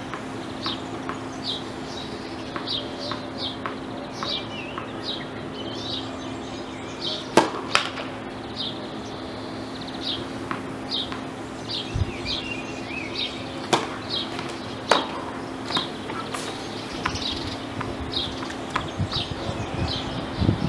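Tennis balls struck by rackets on a hard court, heard as several sharp pops spread through the rally. A small bird chirps over and over throughout, over a steady low hum.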